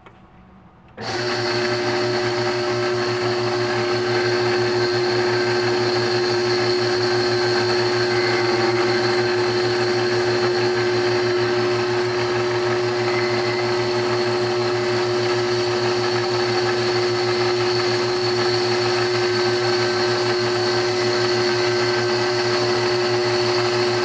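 Overhead drive motor switched on about a second in, spinning the horizontal cutting frame's fly cutter through its cord belt. It runs steadily, a hum with a clear held tone and a fainter high whine.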